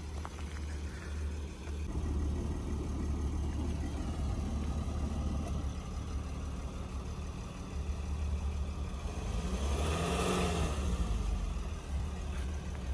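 A car engine running at a steady idle, with a louder vehicle sound swelling and fading about ten seconds in.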